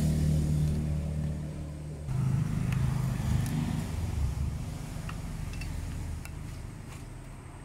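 Low hum of a motor vehicle's engine running steadily; its pitch shifts about two seconds in, and it fades away toward the end.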